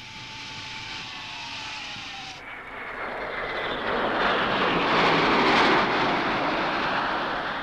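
Jet noise of Concorde's Olympus 593 turbojets as the airliner flies past overhead, swelling to its loudest about five to six seconds in and easing off slightly. Before it, for the first two seconds or so, a softer steady rush with a faint falling whistle.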